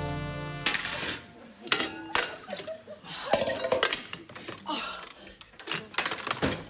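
A music chord fades out, then hurried kitchen clatter: an enamel pot's lid and other pots and utensils clank and clink several times, some strikes ringing briefly.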